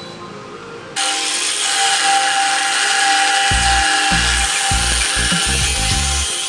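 Angle grinder with a thin cutting disc slicing through square steel tubing. It starts abruptly about a second in and runs steadily: a constant whine over the hiss of the cut.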